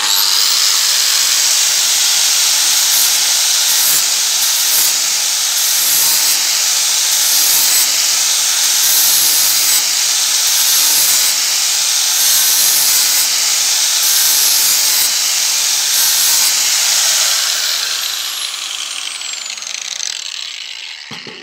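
Makita GA5030R angle grinder with a flap disc grinding the edge of a steel lawnmower blade: a loud, steady grinding hiss over the motor's whine. About 17 seconds in the grinder is switched off and winds down, its whine falling in pitch as the disc slows.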